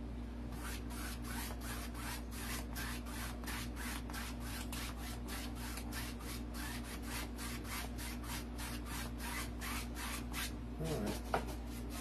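Paintbrush rubbing acrylic paint back and forth across a canvas in quick, even strokes, about four a second, stopping shortly before the end.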